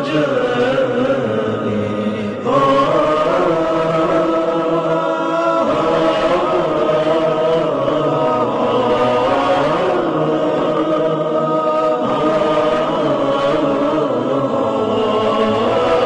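A nasheed: voices chanting together in chorus, holding long notes that bend slowly, with a new phrase entering after about two and a half seconds.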